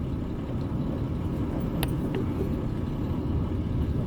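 International 10-wheeler flatbed truck running low and steady in a low gear, crawling downhill on a rough dirt road with its differentials locked. A short sharp click comes about two seconds in.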